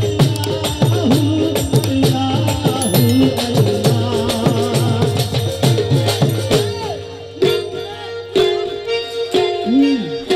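Instrumental qawwali interlude: a harmonium holds chords while barrel hand drums are played fast, the bass strokes bent into falling pitch glides about twice a second. About six and a half seconds in, the drumming drops away to a few scattered strokes under the harmonium's held chord.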